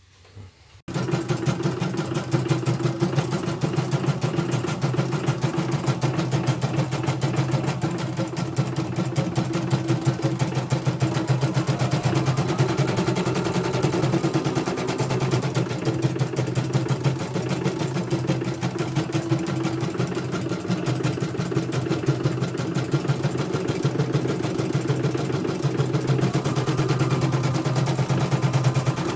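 Computerized embroidery machine stitching a design: a rapid, steady run of needle strikes with the hum of its drive, starting about a second in. It is on a test run after repair of a bobbin case that kept jumping, and it runs without trouble.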